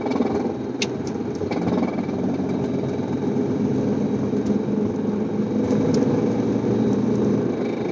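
2008 BMW 335xi driving at steady speed, heard from inside the cabin: a steady engine and road drone with a few sharp clicks. The owner rules out a CV axle as the cause of the clicking and suspects the front driveshaft.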